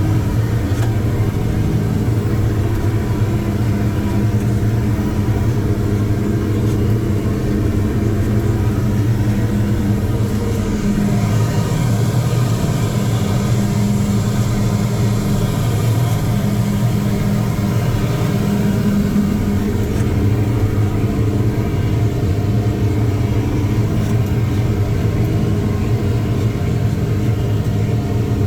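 Tigercat 620E skidder's diesel engine running steadily, its note shifting briefly about ten seconds in.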